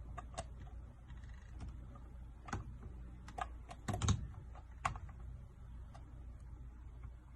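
A small plastic toy washing machine being handled, giving scattered light clicks and knocks, a few close together about four seconds in.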